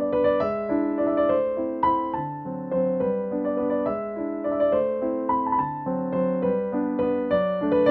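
Background piano music: a slow melody over held chords, the notes changing about every half second.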